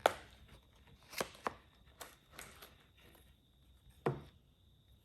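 Vintage Zeiss folding camera being handled as it is opened: a sharp click at the start, then a string of lighter clicks and taps from its metal body and catches, with one more clear click about four seconds in.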